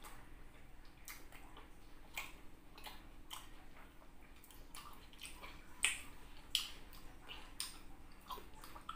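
Close-up mouth sounds of eating rambutan: wet smacks, squelches and sharp clicks as the skins are bitten open and the juicy flesh is chewed, at irregular intervals, with a louder smack about six seconds in and another half a second later.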